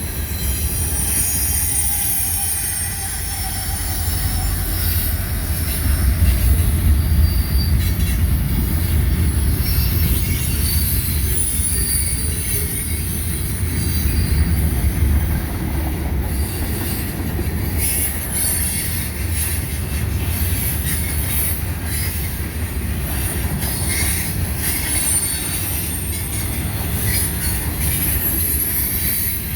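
Freight train cars rolling past: a steady low rumble of steel wheels on rail with a thin high-pitched wheel squeal and scattered clicks over rail joints.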